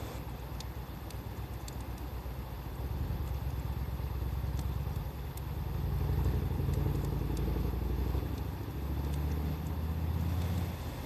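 A motor vehicle's engine running close by: a low, steady hum that grows louder midway and shifts pitch near the end, over faint pops of a wood fire burning.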